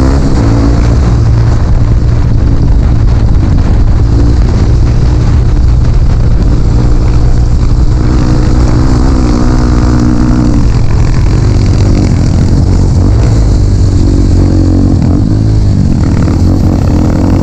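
Dirt bike engine running under way, the revs rising and falling repeatedly as the throttle is worked, over a loud steady low rumble.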